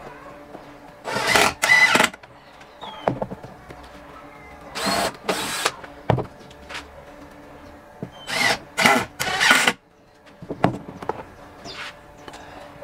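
Cordless power driver running in short trigger pulls, driving screws into a wooden frame. The pulls come in three groups: two, then two, then three.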